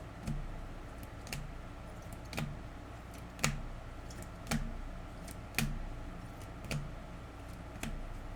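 A series of light, sharp clicks or taps, about one a second, over a low steady hum.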